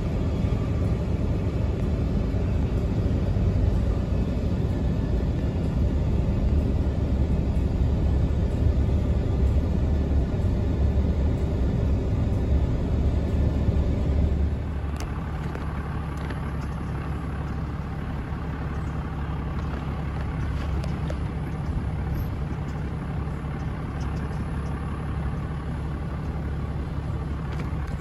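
Inside a car cabin: the steady low rumble of the engine and tyres as the car drives slowly, getting somewhat quieter about halfway through.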